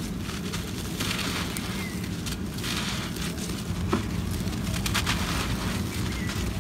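A block of dry, stony red dirt crumbling in the hands: gritty crackling and rustling as it is squeezed and rubbed, with grains trickling and pattering down, swelling a few times.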